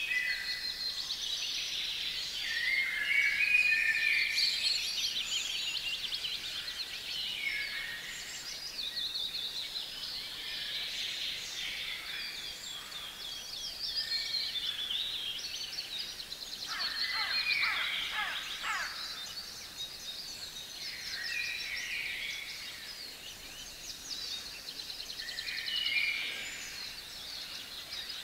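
Several songbirds singing over one another in a steady chorus of high trills and short warbled phrases. A louder run of quick descending trills comes about two-thirds of the way in.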